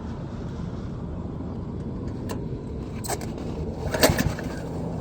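Pull-start attempt on a small gas pressure washer engine: a few clicks, then a quick rattling yank of the recoil starter cord about four seconds in, and the engine does not catch. A steady low rumble runs underneath.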